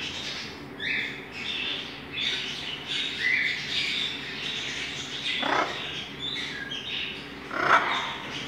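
Blue-and-gold macaw making short, scratchy sounds at irregular intervals as it works at a hazelnut with its beak, with two louder ones in the second half.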